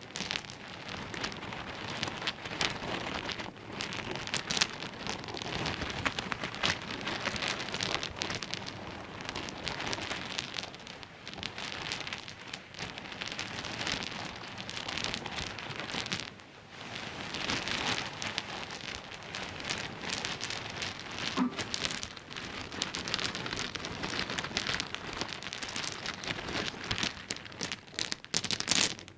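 Small pebbles clicking and clattering against one another in a dense, continuous patter that swells and eases in waves, with a few brief lulls.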